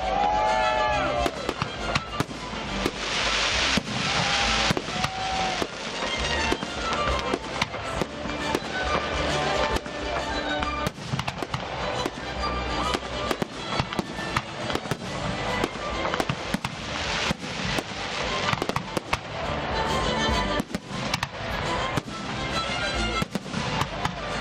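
A 150-shot high-altitude firework battery firing continuously: a rapid string of launch thumps and bursts, several a second, with a few whistling tails near the start.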